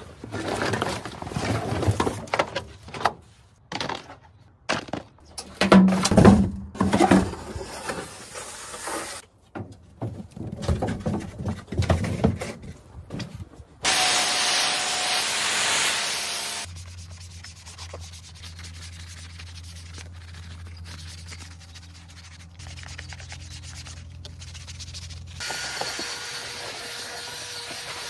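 Irregular rubbing and scraping strokes for the first half, then about halfway a loud steady hiss of a water spray blasting plastic car interior trim panels for a few seconds. Near the end a cordless drill brush whirs steadily as it scrubs a foamed trim panel.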